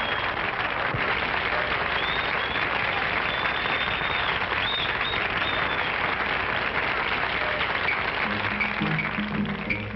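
Club crowd applauding and whistling. Near the end a jazz band starts up, with plucked string-bass notes.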